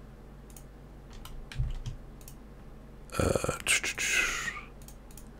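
Scattered clicks of a computer keyboard and mouse. About three seconds in, a louder noisy sound lasts for over a second.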